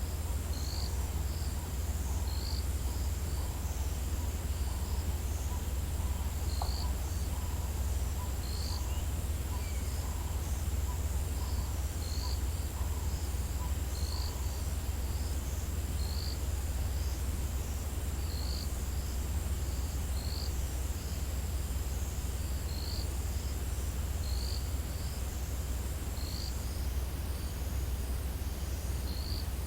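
African bush insects at dawn: a steady high-pitched insect trill that stops about 27 seconds in, with short chirps repeating about once a second and a few faint calls early on. Underneath runs a steady low rumble.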